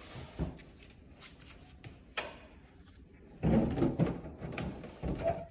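Fisher & Paykel dishwasher drawer unit being pushed into its cabinet opening: a knock, a sharp click about two seconds in, then a louder stretch of sliding and bumping from about three and a half seconds, with a shorter one near the end.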